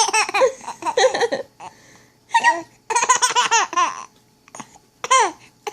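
A baby laughing in several bursts of quick, high-pitched giggles, with short pauses between them.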